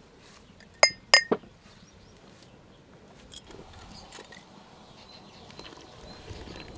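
Glass jars clinking: three sharp clinks with a short ring in quick succession about a second in, then only faint light clatter.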